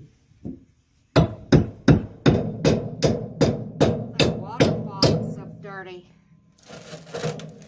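A hammer striking a steel wrecking bar about a dozen times, roughly three blows a second, each a sharp hit with a short ring, driving the bar in to pry up a board.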